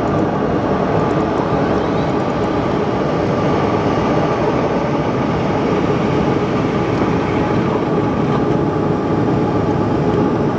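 Steady cabin noise inside a Bombardier CRJ-700 climbing after take-off: its two rear-mounted turbofan engines running under climb power, an even rush of airflow with a few steady tones over it.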